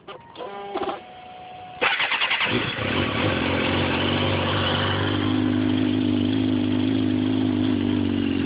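2005 Suzuki GSX-R 600's inline-four engine being started: a click, a second or so of the starter whirring, then the engine catches about two seconds in with a brief rev and settles into a steady idle.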